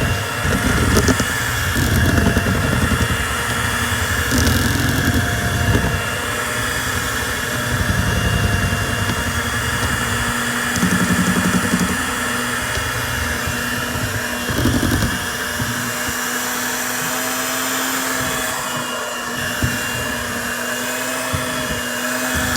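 Electric hand mixer running steadily with a motor whine, its beaters working through batter in a bowl; the low churning eases off about two-thirds of the way through while the whine carries on.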